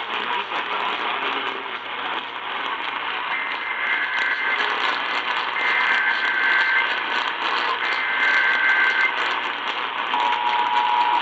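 Emergency Alert System SAME header received over a static-filled radio signal: three bursts of shrill two-tone data, each about a second long and about a second apart. Just over a second after the last burst, the steady alert tone starts.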